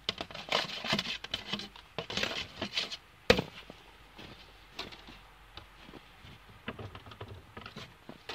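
Handling noise: rustling and scattered light knocks of wood, with one sharp knock about three seconds in and quieter ticks after.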